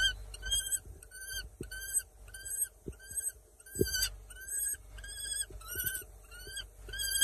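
Small falcon calling over and over, a steady series of short, arched notes about two a second.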